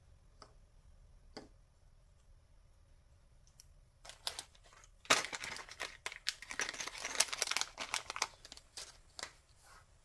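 A few light clicks of small snowflake pendants being set down on a mat, then a clear plastic packaging bag crinkling as it is handled. The crinkling starts about four seconds in and stops shortly before the end.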